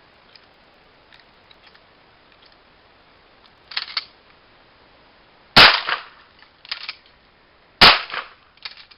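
12 gauge pump-action shotgun: two shots about two seconds apart, each followed a second later by a short double clack that fits the pump being racked. The first racking comes about a second before the first shot.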